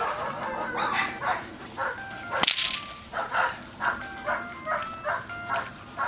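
German Shepherd puppy barking repeatedly in short bursts while being teased with a tug, with a single sharp crack about two and a half seconds in.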